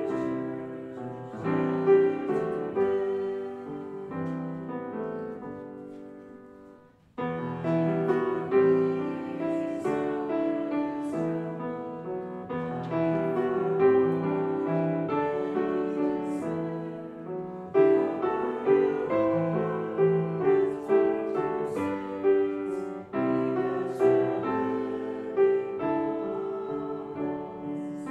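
Piano playing a hymn in chords. The sound fades to a short break about seven seconds in, then starts again.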